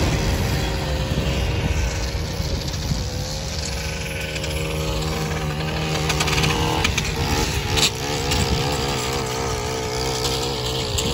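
The last freight cars rumble past over the crossing in the first second or two. Then a small handheld gas engine runs, its pitch wavering up and down from about halfway through.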